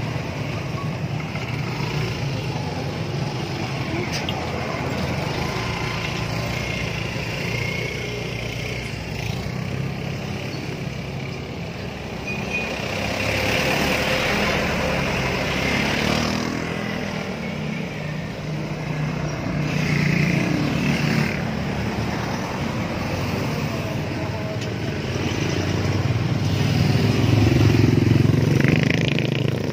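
Street traffic with motorcycle engines running and passing by, swelling louder several times as vehicles go past, the loudest near the end.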